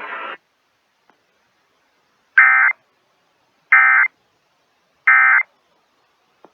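Three short bursts of Emergency Alert System digital data tones from a NOAA Weather Radio broadcast, the SAME end-of-message code that closes an alert. The bursts are shrill and buzzing, each about a third of a second long, with about a second of silence between them.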